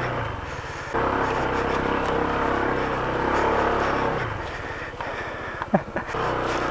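Honda ADV scooter's single-cylinder engine revving under load on a loose rocky climb. The throttle eases off just after the start, comes back sharply about a second in, then drops to a slower pulsing near the end. Two brief sharp sounds come just before it ends.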